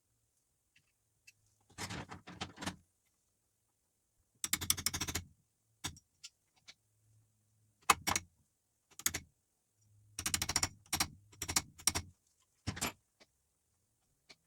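Short bursts of rapid metallic clicking, like a socket ratchet being worked, with hand tools clinking in between, about a dozen separate bursts.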